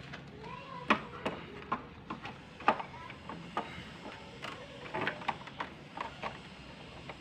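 Irregular small clicks and knocks of a keyboard's circuit board and plastic connectors being handled and fitted back into the opened chassis, about a dozen over the seconds.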